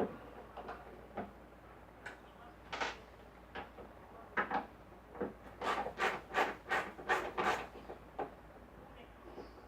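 Screwdriver work on a wooden speaker cabinet: a string of short scraping rubs against the wood, with a quick run of about five, a third of a second apart, in the middle.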